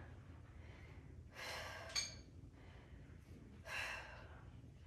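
A woman breathing hard from exertion during hip thrusts, with two audible breaths out about a second and a half in and near four seconds. The first breath ends in a brief click.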